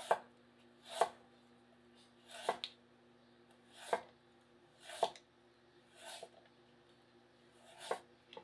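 Daovua Chinese chef's knife (cleaver) slicing through a raw carrot on a wooden cutting board, about seven cuts at roughly one a second, each ending in a sharp knock of the blade on the board.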